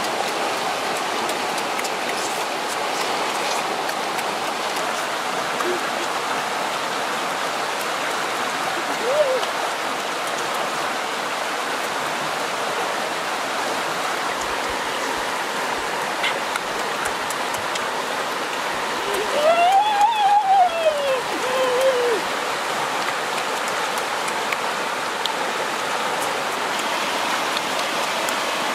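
Steady, even rushing noise of falling or running water. About two-thirds of the way in, a short pitched hum rises and falls, and a fainter brief one comes about a third of the way in.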